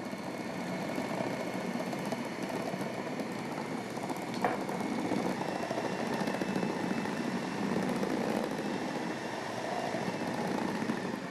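Countertop food processor motor running steadily as its blade mixes a firm bread dough of flour, sourdough starter and water until it gathers around the centre blade. One brief tick sounds about four and a half seconds in.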